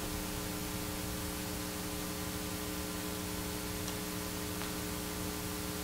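Steady electrical mains hum of several even tones over a faint hiss, with no speech.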